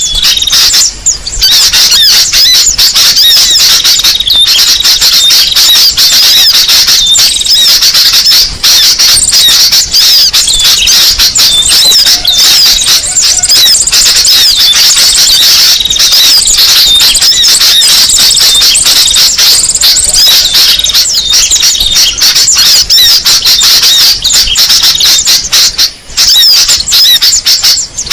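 Bird-lure recording for small songbirds: a dense, unbroken chatter of many small birds' high, squeaky chirps and twitters overlapping one another.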